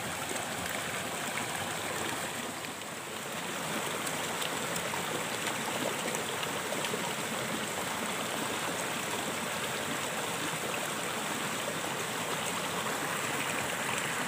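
Small rocky stream splashing down a little cascade into a pool: a steady rush of running water.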